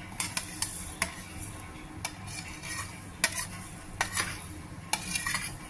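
Steel spoon scraping across a steel plate, sliding roasted sesame seeds, fennel and cumin into a container: a series of short, sharp metal-on-metal scrapes and clinks at uneven intervals.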